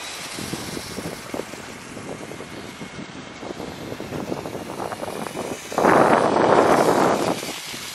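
Small electric RC car driving across a beach of sand and broken shells, its wheels crackling and crunching over the shells in irregular bursts. About six seconds in, a loud rushing noise swells up for a second and a half and then drops away.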